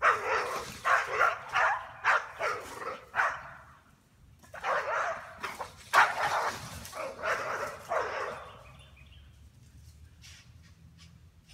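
English bull terriers barking in two quick runs of repeated barks, with a pause about four seconds in. The barking stops a little after eight seconds in.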